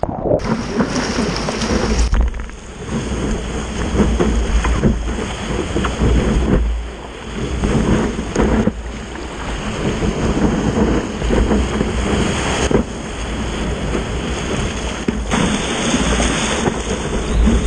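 Breaking waves and whitewater rushing and splashing around a stand-up paddleboard, with strong wind buffeting the board-mounted camera's microphone as a heavy, uneven rumble.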